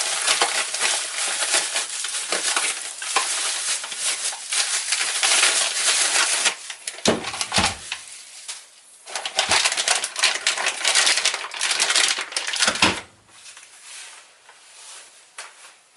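Packaging crinkling and rustling as bike rack parts are unwrapped, in two long stretches with a few knocks in the lull between them, then dropping low near the end.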